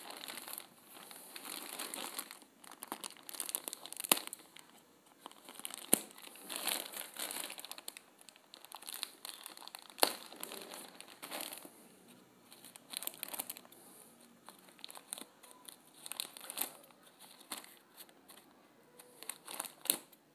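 A plastic courier mailer bag crinkling as it is handled and cut open with scissors: irregular rustling with a few sharp snips and short pauses between them.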